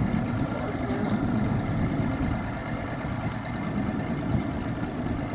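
A boat motor running steadily with a low rumble.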